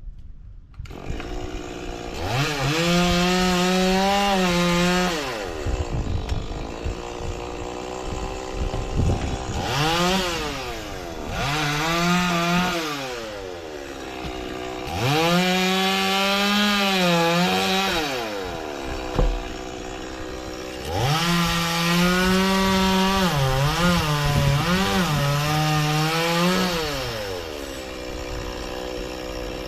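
Two-stroke Stihl chainsaw cutting frangipani wood: it is revved up to full throttle several times, each time held for a few seconds with the pitch wavering and sagging under load, then let back down to idle between cuts.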